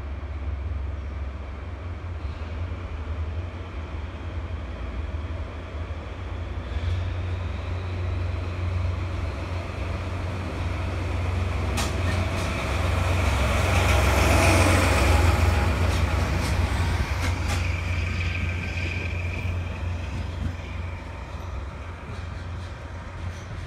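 Diesel locomotive pulling out with the Maya 50 building-limit measuring car: a low engine drone grows louder as it approaches and is loudest just past the middle as it passes. A few sharp wheel clicks over rail joints come as it goes by, then the sound eases as the train pulls away.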